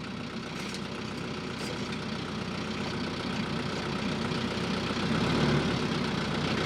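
Compact tractor's diesel engine running steadily while it handles a log with its grapple, growing gradually louder with a low-end step up about five seconds in.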